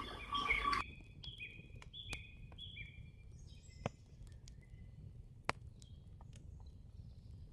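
A bird calling a quick series of about six short, falling chirps in the first few seconds, followed by scattered fainter chirps. A few sharp clicks or snaps fall in between, the loudest about four and five and a half seconds in.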